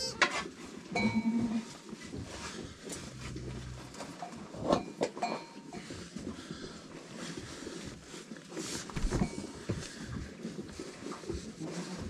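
Goats in a pen: a short bleat about a second in and a low, longer call around three seconds, among scattered rustling and knocks.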